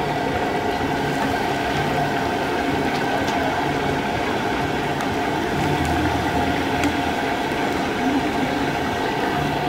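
Chicken pieces deep-frying in a large kadai of hot oil, the oil bubbling and sizzling steadily, with a steady hum underneath and a few faint clicks.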